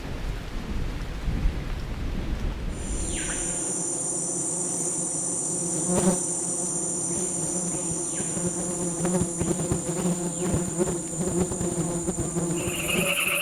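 Rain with a low rumble of thunder fades out in the first few seconds, and a chorus of insects takes over: several steady high-pitched trills over a lower, steady buzzing hum.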